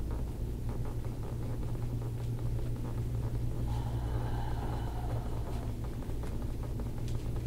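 A steady low machine hum, unbroken and unchanging.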